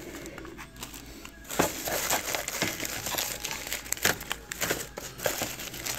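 Clear plastic bag and tissue-paper packing crinkling as they are handled. It starts about a second and a half in and goes on as dense, irregular crackling.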